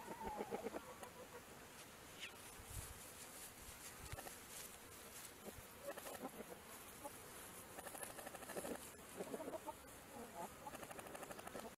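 Chickens clucking quietly in short runs: one near the start, then more through the second half.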